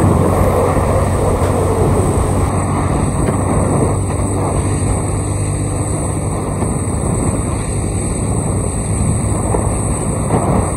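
Motorcycle riding at speed: wind rushing over the microphone, with the engine's steady hum underneath.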